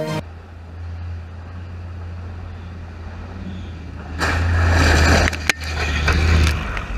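A heavy armoured vehicle's engine droning low, then swelling into a loud rushing rumble about four seconds in as the vehicle drives right over a camera set in the grass, with a sharp knock in the middle of the pass.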